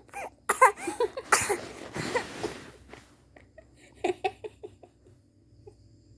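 Baby coughing in several sharp, noisy fits just after a crying spell, then a few faint, short sounds about four seconds in.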